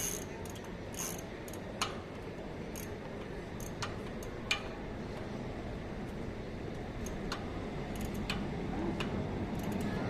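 Irregular light metallic clicks and ticks from a bicycle chain and drivetrain being handled during a chain change, over a steady low background rumble.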